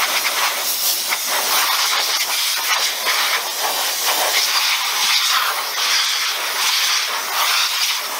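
Compressed-air blow nozzle hissing loudly in a continuous, wavering blast, blowing rinse water out of an RC truck's chassis.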